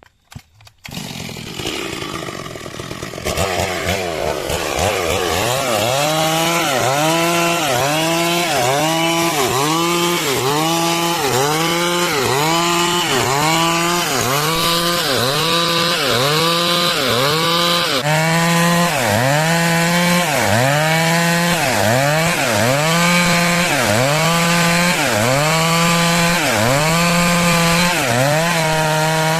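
Stihl MS 382 two-stroke chainsaw starting up about a second in, then running hard while cutting wood, its engine pitch dipping and recovering about once a second under the load of the cut.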